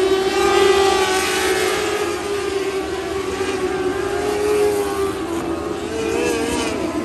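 Several lightning sprint cars' engines running at high revs as they circle a dirt oval, blending into one sustained, wavering whine.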